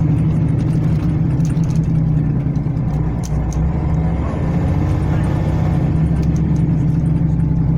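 Cabin noise of a Scania L94UB 6x2 city bus under way: its 9-litre five-cylinder engine and ZF automatic gearbox drone steadily, with light clicks and rattles from the interior. A faint high whine rises about four seconds in.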